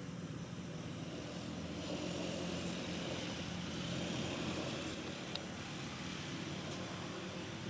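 An engine running with a steady low hum, swelling a little and then easing off.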